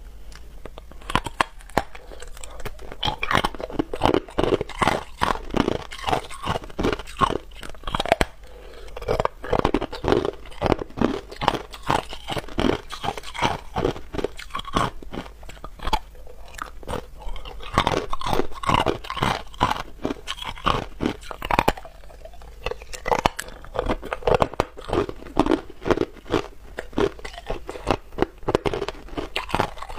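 Hard, solid ice being bitten and chewed close to a clip-on microphone: a dense, irregular run of loud crunches and cracks.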